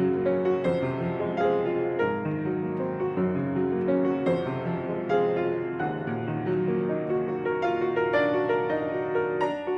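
Solo piano playing a slow, gentle instrumental piece.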